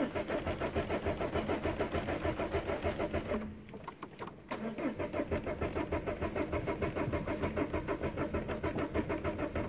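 Starter motor cranking the Peugeot 406's HDi diesel engine, an even chug of about six compression beats a second, heard from inside the cabin. It cranks for a few seconds, pauses for about a second, then cranks again for about five seconds before stopping.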